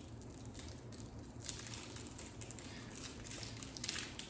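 Disposable gloves rustling and crinkling in short bursts as hands are worked into them.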